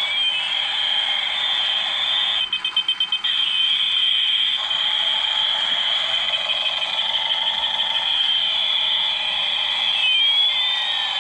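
Light-up toy gear helicopter driven above its rated voltage from a bench power supply, its sound chip sounding a shrill electronic siren: a steady high tone, with sweeps rising and falling across it near the start and near the end, and a quick run of about eight beeps about two and a half seconds in.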